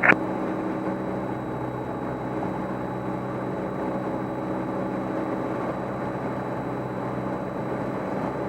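Cessna 172M's four-cylinder Lycoming O-320 engine and propeller droning steadily, heard in the cockpit.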